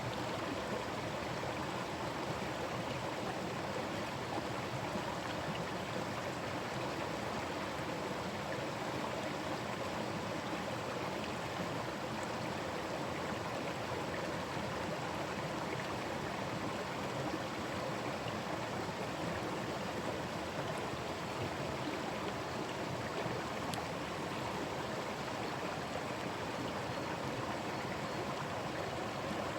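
Forest stream running steadily over its bed, a continuous even rushing and babbling of water.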